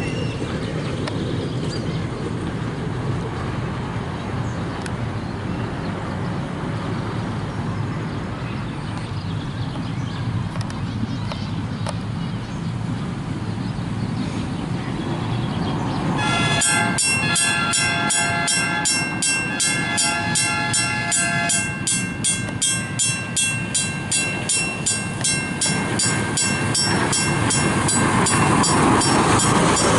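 A low rumble, then about halfway through the Western Railroad Supply mechanical crossing bell starts up and keeps ringing with rapid, even clanging strokes as the level crossing activates; though dirty, the bell sounds healthy.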